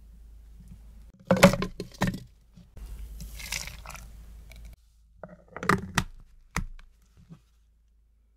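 Frozen strawberry sorbet pieces dropping into a plastic blender jar with a cluster of hard clacks. Lemon juice then pours onto them for about two seconds, followed by a few more knocks from handling the jar.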